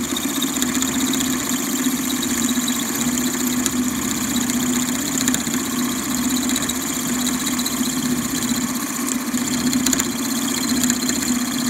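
Warco lathe running steadily with a 6.8 mm twist drill cross-drilling a part, a constant hum. The drill is breaking through into the part's bore on the far side, so it cuts intermittently and has to be fed very gently.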